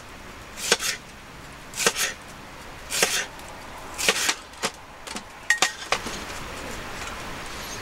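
Kitchen knife slicing a Japanese leek (negi) onto a wooden cutting board: a crisp cut about once a second, with a few quicker knocks near the end. A steady hiss comes up in the last couple of seconds.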